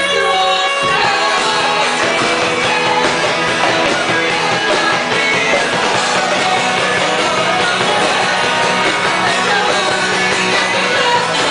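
Christian worship band playing a rock-style song with singing.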